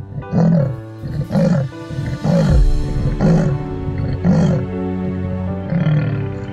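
Leopard giving its sawing call: a series of about six rough grunts, roughly one a second, each falling in pitch, the last after a longer gap. Background music plays under it throughout.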